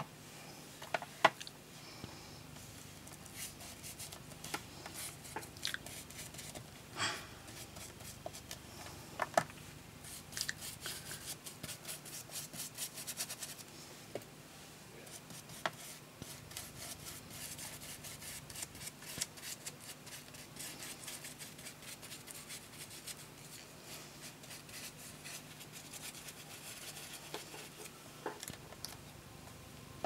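Craft materials and tools being handled on a desk: scattered sharp clicks and taps, with stretches of quick scratching or rubbing strokes, over a faint steady low hum.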